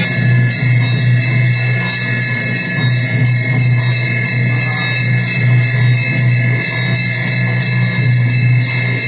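Devotional aarti music: a steady low drone and sustained high tones under a fast, even rhythm of ringing metallic percussion.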